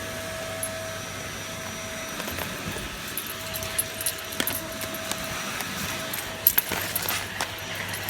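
Vacuum cleaner running steadily with a faint motor whine, with scattered light clicks and jingles over it.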